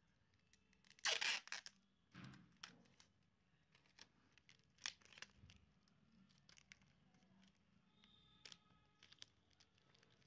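Adhesive tape being ripped, a short loud tearing sound about a second in, followed by softer crinkling and a few light clicks as tape is pressed down over the display cable on the back of a laptop screen panel.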